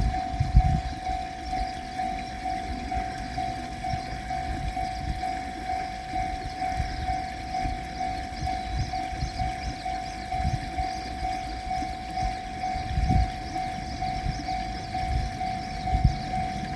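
Japanese railroad crossing warning bell ringing continuously in a rapid, evenly repeating single tone, over a low rumble with occasional thumps.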